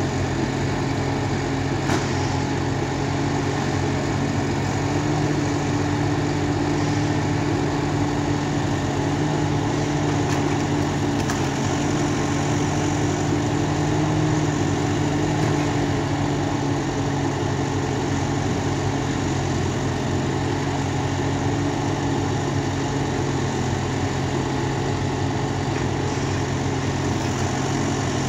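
Ponsse Wisent forwarder's diesel engine running steadily as its hydraulic crane grabs and lifts pine logs, the engine note rising slightly for several seconds midway under the crane's load. A single sharp click about two seconds in.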